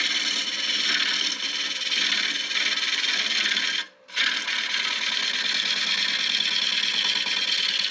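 Bowl gouge cutting into a spinning wooden bowl blank on a wood lathe: a steady, hissing scrape of shavings coming off. It breaks off briefly about four seconds in, when the tool leaves the wood, then resumes.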